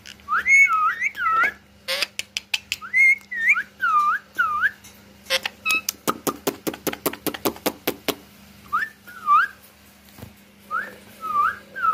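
A man whistling short swooping notes, rising and falling, in several quick phrases. In the middle comes a fast run of sharp clicks, several a second, for about two seconds.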